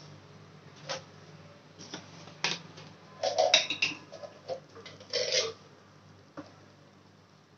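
Metal kitchen utensils clinking and clattering: a few single clicks, then two short bursts of rattling knocks with some ringing about three and five seconds in, over a low steady hum.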